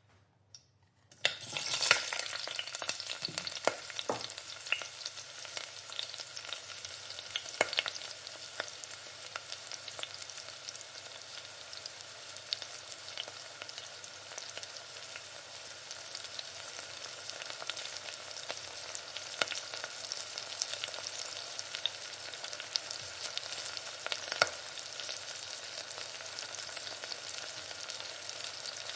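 Food sizzling in hot oil in a pan while being stirred, with frequent light clicks of the utensil against the pan. The sizzle starts suddenly about a second in and then runs steadily.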